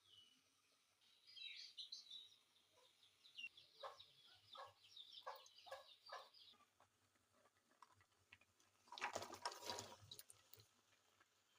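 Birds calling faintly, chirping and then giving a run of short clucks, with a brief burst of hissing noise about nine seconds in.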